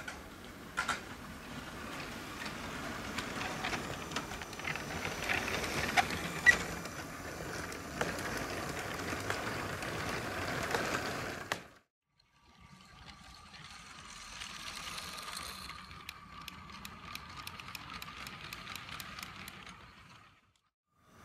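Lego City trains running on plastic track: their Power Functions electric motors whirring and the plastic wheels clattering over the track joints as they pass. After a brief break about halfway, a steady motor whine with regular clicks over the rail joints, about three or four a second.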